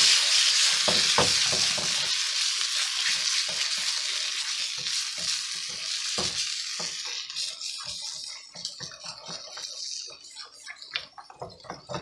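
Spatula stirring thick cream of celery soup into sizzling vegetables in a metal saucepan. The sizzle is loud at first and dies away over several seconds as the cold soup is worked in, leaving soft scrapes and knocks of the spatula against the pan.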